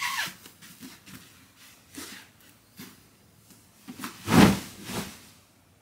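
Cloth and bedding rustling, with soft thumps of someone moving about by a bed. The loudest comes about four and a half seconds in, as dark fabric sweeps across the duvet, and a smaller one follows a moment later. A short falling tone sounds at the very start.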